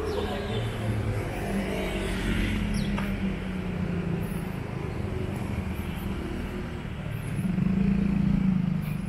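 Street traffic: motor vehicles, cars and motorcycles, driving past, with one passing louder near the end.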